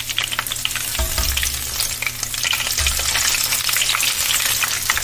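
Filled wontons deep-frying in oil at about 330°F, a dense steady crackling sizzle, while a wire spider skimmer moves them through the oil. This is the hotter second fry that crisps the wontons.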